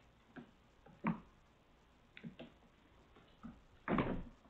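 Cats moving about in play, making scattered light knocks and taps, with a louder, longer thump about four seconds in.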